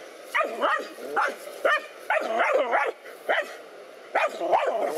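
Dog barking at a snake it is confronting: short sharp barks in clusters, several close together, with brief pauses between the clusters.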